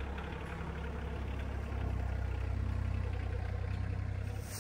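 Compact tractor with a front-end loader driving past, its engine running steadily and growing a little louder about two seconds in.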